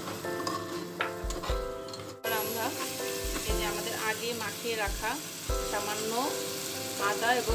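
Spices frying and sizzling in hot oil in a cooking pot, under background music with held notes and chirping melodic figures. The sound breaks off briefly about two seconds in.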